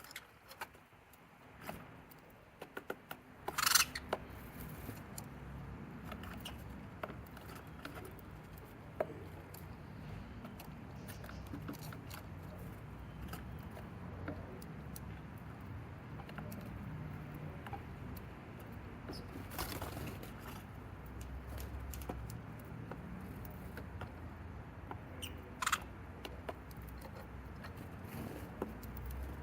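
Sparrows moving about inside a wooden cat house: many light clicks, taps and scratches of feet and beaks, with a few louder sharp sounds about 4, 20 and 26 seconds in.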